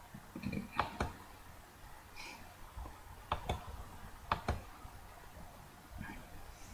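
Computer mouse button clicking: three quick pairs of sharp clicks a fraction of a second apart, then a single click near the end, over faint room noise.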